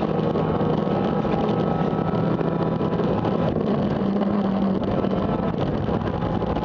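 Renault Megane kit car's engine heard from inside the cabin, pulling hard at a steady pitch that rises briefly about four seconds in, over the rumble of tyres on a gravel road.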